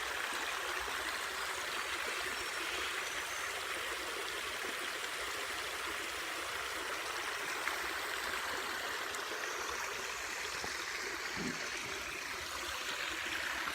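Running water of a small bush waterfall and stream, full after a day of good rain, rushing steadily.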